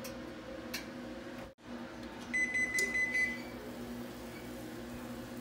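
Electronic oven beeping: a quick run of high beeps about two seconds in, lasting about a second, over a steady low hum.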